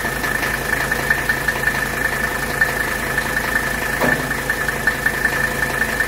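Mercedes 300TD's OM617 five-cylinder diesel engine idling steadily with its fast, even clatter, with the air conditioning switched to max while the system is being charged with refrigerant.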